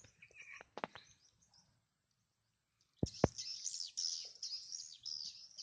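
Two sharp knocks, then dense high-pitched bird chirping starting about three seconds in, after a moment of dead silence; a few scattered clicks and short chirps come before the silence.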